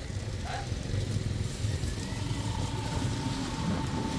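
A vehicle engine running as a steady low rumble, with a faint steady high tone joining about two seconds in.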